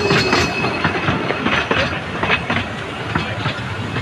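Narrow-gauge train running along the track, its wheels clicking and knocking irregularly over the rail joints. A falling whistle tone dies away about half a second in.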